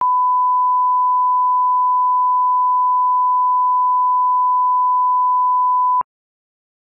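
Steady single-pitch test tone, the line-up tone that goes with colour bars, held at one level. It cuts off suddenly about six seconds in with a faint click.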